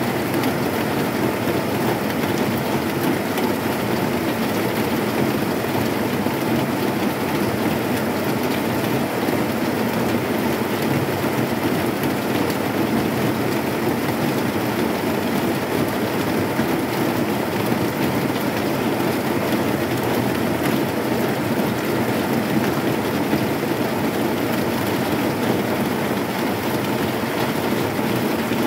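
Heavy rain falling on a corrugated zinc roof: a steady, dense patter of drops on the metal sheets, with no thunder.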